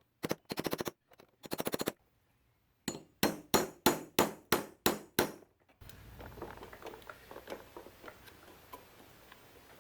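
A hammer striking a socket set over a push nut to drive it down the steering shaft of a Power Wheels ride-on. Two short bursts of very rapid metallic tapping come first, then about eight separate sharp ringing blows, roughly three a second. Near the halfway point it gives way to a low background with faint clicks.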